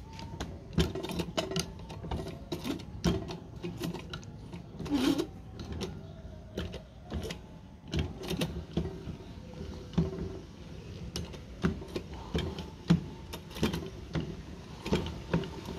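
Old Singer hand-crank sewing machine being cranked, its mechanism clacking in a steady run of about three strokes a second.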